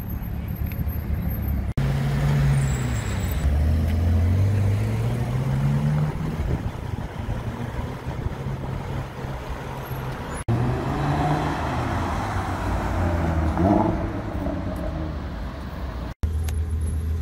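Sports car engines accelerating away in city traffic, heard in several short clips. The engine note dips, then climbs steadily as one car pulls away hard, and a few seconds later a second car's revs rise over passing traffic.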